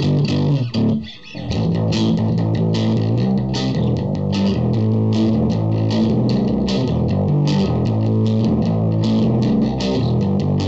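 Fender '62-reissue Jazz Bass played through an Orange Terror Bass 1000 valve/solid-state hybrid head with the gain cranked, giving a big, distorted bass riff. After a short break about a second in, it runs on as a steady stream of plucked notes.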